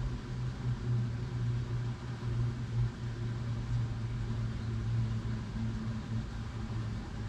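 A steady low mechanical hum with a fluctuating low drone.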